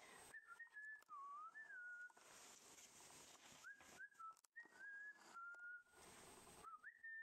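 Rough collie puppy whining faintly: a series of about five thin, high whines, some dipping and then rising in pitch.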